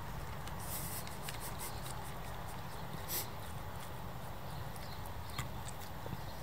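Bernese mountain dog chewing a pig's ear: irregular wet crunches and clicks, with a steady low rumble underneath.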